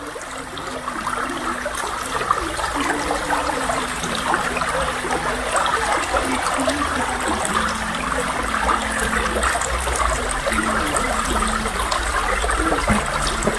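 A shallow woodland stream running and trickling over stones, a steady even rush.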